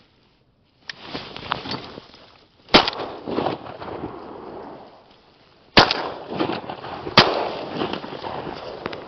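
Three shotgun blasts at ducks, each followed by a decaying echo. The first comes about three seconds in, and the other two come close together, a second and a half apart, near the end.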